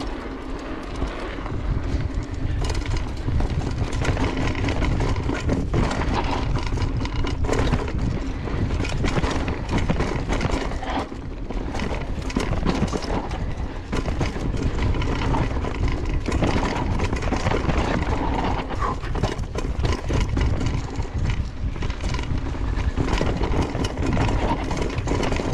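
Mountain bike riding fast down a loose dirt trail, heard from a camera on the rider: wind rumbling on the microphone, tyres rolling over the dirt and the bike rattling and knocking over bumps. The rumble grows louder about two seconds in as the bike picks up speed.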